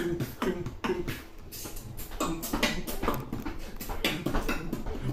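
Beatboxing: a rapid run of mouth-made percussive hits, with low vocal bass tones bending in pitch between them.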